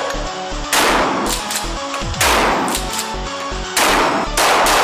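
Gunshots over electronic music with a steady beat. There are single shots about a second and a half apart, each with a short echoing tail, and they come quicker near the end.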